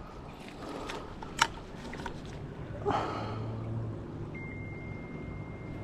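Creek water running steadily, with one sharp click about one and a half seconds in and a brief rustle near three seconds.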